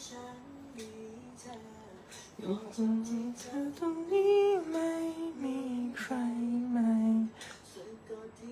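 A voice humming and singing a slow melody in long held notes that step up and down.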